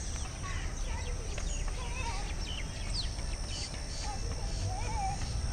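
Several birds chirping and giving short warbling whistles, with a steady high-pitched insect trill and a low background rumble underneath.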